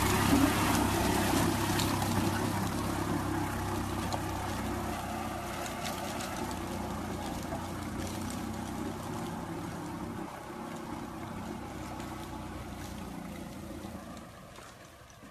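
Golf cart driving through a shallow creek: water churning and splashing around its wheels, with the steady low hum of the cart's motor underneath. The sound fades gradually as the cart pulls away.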